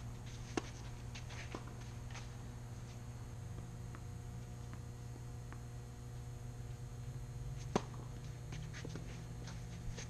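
Tennis ball struck by a racket: a sharp hit about half a second in and a louder one near the end, when the near player serves, with lighter ticks of ball bounces, distant returns and footsteps on the court between them. A steady low hum runs underneath.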